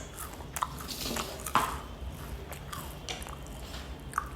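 Crisp chocolate-filled wafer bites crunching: scattered short sharp crackles and clicks, the loudest about one and a half seconds in.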